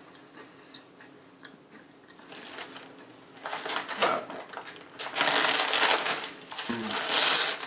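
Plastic wrapper of an Oreo cookie package crinkling as a hand rummages in it and pulls the flap back, starting faintly a couple of seconds in and growing louder toward the end.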